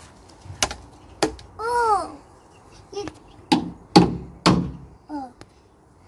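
A toddler babbling in short wordless sounds, among a few sharp knocks; the three loudest knocks come in quick succession, about half a second apart, just past the middle.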